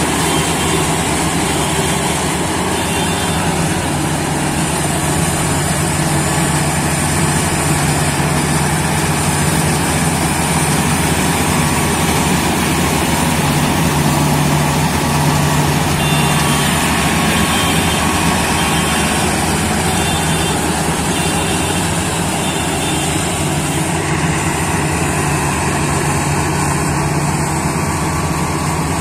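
GAM tracked rice combine harvester running steadily as it moves through the crop, its engine and machinery giving a continuous, even sound.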